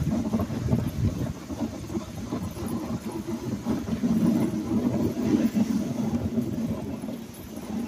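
A dog sled's runners scraping over packed snow as a husky team pulls it, a steady low rumble.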